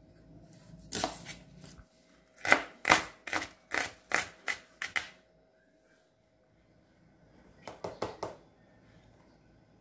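Chef's knife chopping a red onion on a wooden cutting board: a couple of strokes, then a quick run of about eight sharp chops, two or three a second. A short cluster of taps follows near the end.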